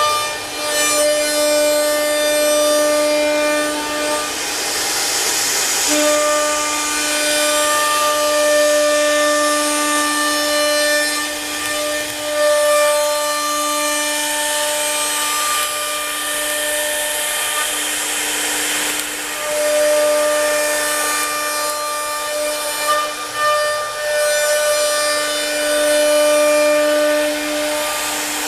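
CNC router running: its air-cooled spindle gives a steady high whine, with a rasping cutting noise that swells and fades over it.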